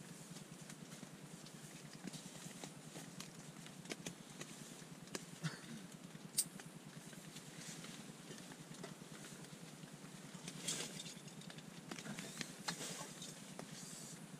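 Faint steady rain pattering on a tent, with scattered clicks and rustling as camping gear is handled in a backpack.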